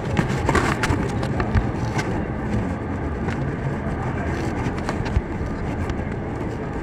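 Busy city-street traffic: car and minibus engines running and passing in a steady low rumble of road noise, with a few sharp clicks in the first couple of seconds.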